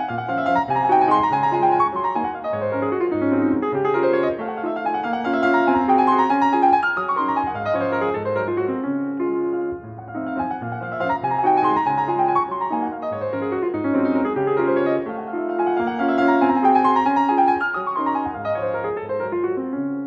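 Piano music playing a lively phrase with fast descending runs, the phrase starting over about halfway through.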